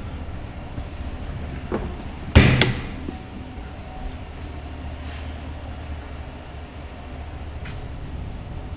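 Steady low hum of the pickup's 5.3-litre V8 idling, heard from inside the cab. About two and a half seconds in, two loud knocks come close together, with a smaller knock just before.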